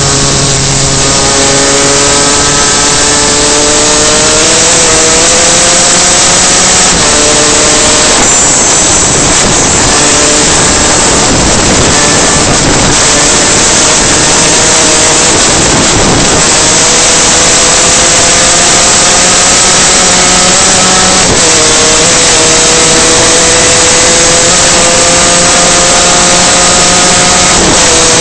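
Superkart's two-stroke engine running hard at speed, its pitch climbing steadily and then dropping sharply several times, over a loud steady rush of noise.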